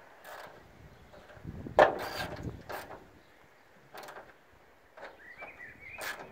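Scattered short clicks and scrapes of a hand tool working the grille fastenings from under the hood as the grille screws are tightened, with one louder knock about two seconds in.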